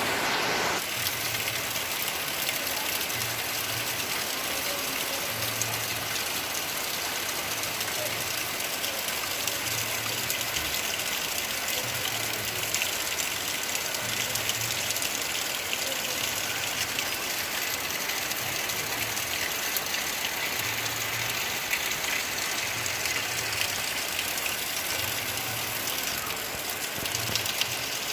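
Steady rain falling, with a low hum under it that comes and goes about every two seconds.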